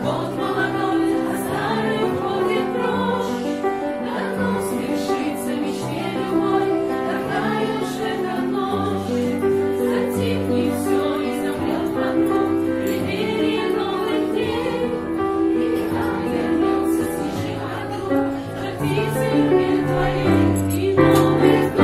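Grand piano accompanying a group singing a song together in unison, with a girl's solo voice leading.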